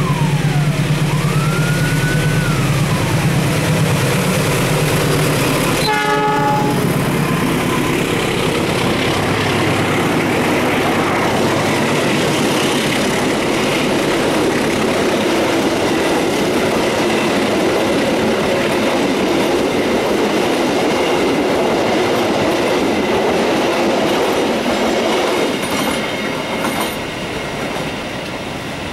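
A diesel-hauled passenger train passes close by: locomotive engine noise and a rising-and-falling siren-like wail at the start, then a short horn blast about six seconds in. The steady rumble and clatter of the coaches rolling past follows and fades near the end.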